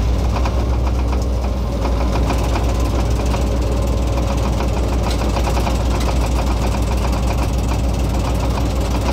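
R123 diesel-electric locomotive engine running steadily: a deep hum with a fast, even rattle on top.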